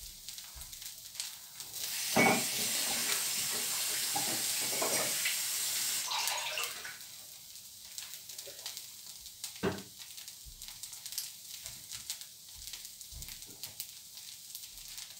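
A dosa sizzling and crackling lightly on a hot pan, with a water tap running for about four and a half seconds starting about two seconds in, the loudest sound.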